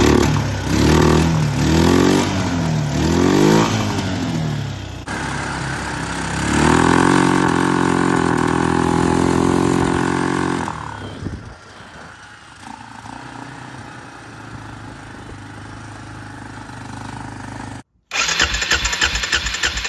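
2005 Arctic Cat 400 ATV's single-cylinder engine revving up and down about four times while riding, then holding a steady high note for a few seconds before dropping back to a low, quieter run. Near the end, after an abrupt cut, the starter cranks the engine over rapidly and evenly, as for a compression test.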